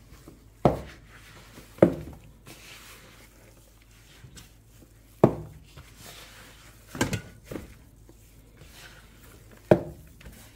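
Hands kneading and squeezing a thick zucchini-bread dough in a plastic mixing bowl, with about six sudden thumps spread through as the dough and hands knock against the bowl.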